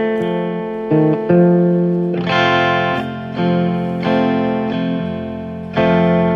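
Guitar playing slow chords, each left to ring and fade before the next is struck.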